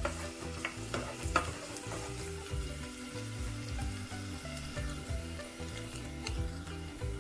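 Chopped garlic, dried red chilies and cumin seeds sizzling in hot ghee in a stainless steel saucepan. A few sharp clicks of the spatula against the pot come in the first second and a half as it is stirred.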